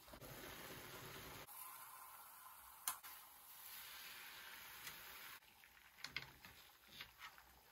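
Faint sizzling of macaroni, tomato and chicken in a metal pan, with a spatula clicking and scraping against the pan as it is stirred. One sharp click comes about three seconds in.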